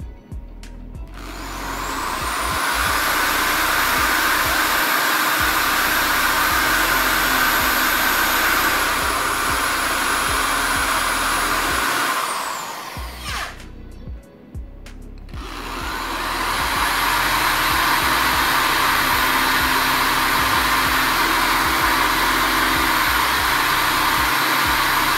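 Bosch corded electric drill spinning an office-chair caster wheel against a cloth to clean it. It runs twice: its whine rises as it spins up about a second in, falls away as it stops about halfway through, then rises again a few seconds later for a second long run.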